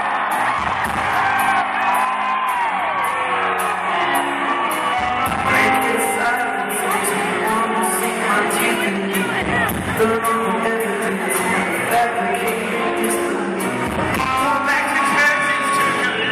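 Live rock band playing a song with a lead singer: electric guitars, bass and drums with a steady cymbal beat under loud vocals. It is recorded on a phone from the crowd, with hall echo.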